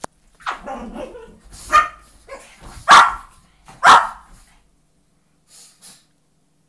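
Brussels Griffons barking in rough play, a run of short barks with the two loudest about three and four seconds in, then two faint ones near the end.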